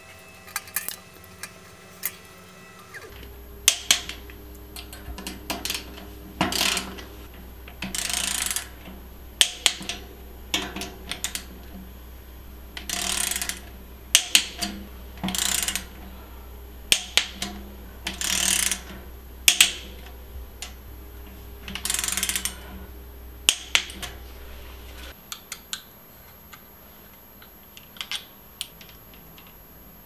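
Bike parts and hand tools being worked in a bike build: a string of sharp clicks and knocks mixed with short ratcheting bursts, each under a second long. A low steady hum runs underneath from about three seconds in and stops about five seconds before the end.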